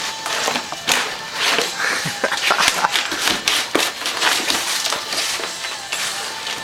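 A golden retriever puppy chewing a plastic cone collar, the plastic crackling and clattering in quick, irregular crunches.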